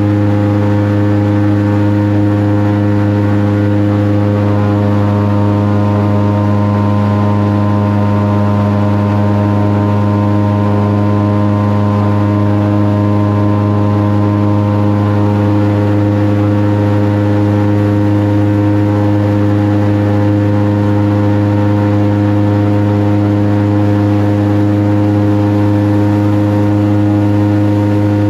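Airboat's engine and propeller running at a steady cruising speed: a loud, even drone that holds one pitch throughout.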